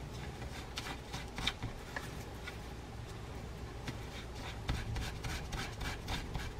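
A small steel level-wind pawl from a fishing reel being scrubbed with steel wool between gloved fingers to clear rust and dirt: faint, irregular scratching and rubbing.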